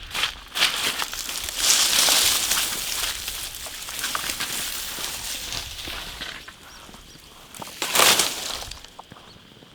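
Dry leaves and plant stems rustling and crunching as they are handled or trampled, loudest from about one and a half to three seconds in and in a short burst near the end.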